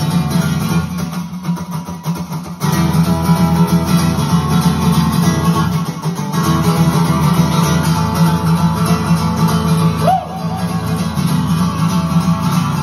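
Acoustic guitar strummed live through amplification, playing a steady country rhythm; it goes softer about a second in and comes back at full strength a little under three seconds in.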